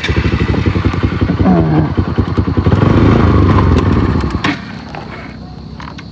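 Motorcycle engine running loudly, its rapid firing pulses strong, then falling away about four and a half seconds in to a quieter hum.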